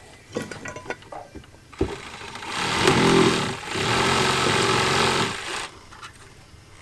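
A power tool's motor runs for about three seconds, starting about two and a half seconds in, dipping briefly and then cutting off.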